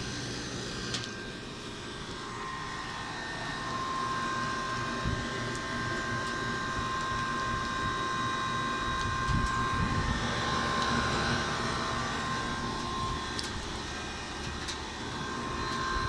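Commercial air-conditioning and refrigeration condensing units running: a steady rush of condenser fans over a low compressor hum, with a thin steady whine.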